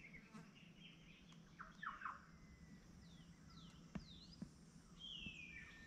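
Faint wild birdsong: a short trill at the start, then scattered chirps and several down-slurred whistles, with a couple of soft clicks about four seconds in.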